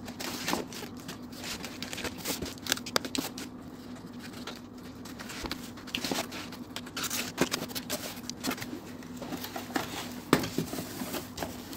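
A parcel's packaging being cut and pulled open by hand: irregular scraping, clicking, rustling and crinkling, over a faint steady hum.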